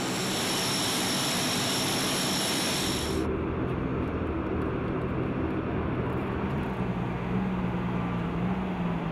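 Turboprop engines of a C-130 Hercules running on the ramp: a dense engine noise with a steady high-pitched whine. About three seconds in, the sound changes abruptly to a duller, lower engine rumble without the whine, with a low steady hum coming in near the end.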